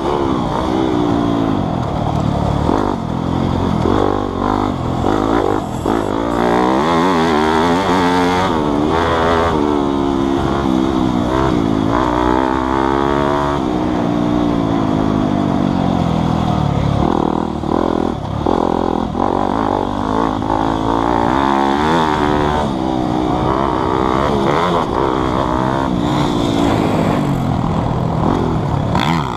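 Motocross bike engine revving hard through the gears as it is ridden around a dirt track, its pitch climbing and dropping again and again with each gear change and throttle roll-off.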